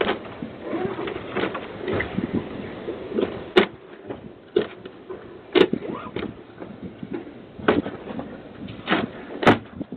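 A man banging on a front door: a run of sharp, irregular knocks and bangs, coming more often in the second half.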